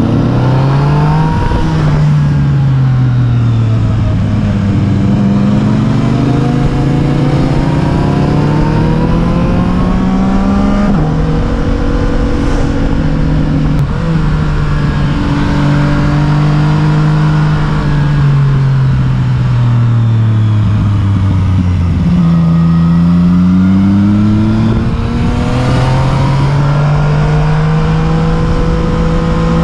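A motor vehicle's engine running while it drives. Its pitch sinks slowly over several seconds, steps up suddenly about eleven seconds in as at a gear change, sinks again, then climbs near the end.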